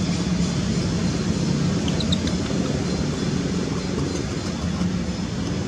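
Steady low rumbling background noise with a hiss above it, unchanging throughout. A couple of faint, short, high chirps come about two seconds in.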